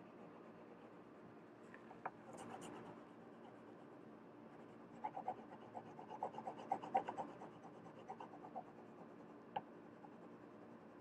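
Green coloured pencil shading on paper, a faint scratchy rubbing that becomes a quick run of short strokes from about halfway in, with a couple of single clicks. It is a green layer going over earlier yellow and red strokes on a leaf.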